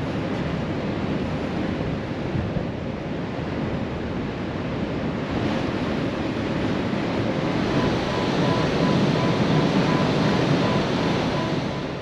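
Strong wind buffeting the microphone over the steady rush of the sea on a ferry's open deck, growing a little louder in the second half.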